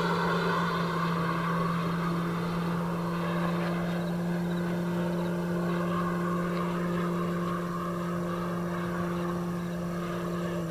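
Electric RC P-47 Thunderbolt model in flight, its 24x12 propeller and electric motor droning at a steady pitch together with an onboard RealSound sound system simulating an R-2800 radial engine. The sound fades slowly as the plane flies away.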